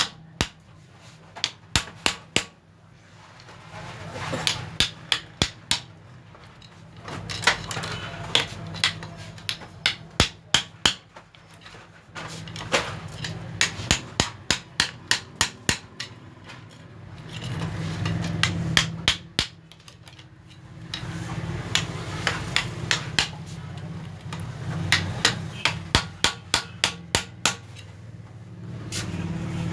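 Hammer blows knocking a bearing out of a pulley, in runs of several sharp strikes about four a second with short pauses between; the bearing is being driven out so it can be greased.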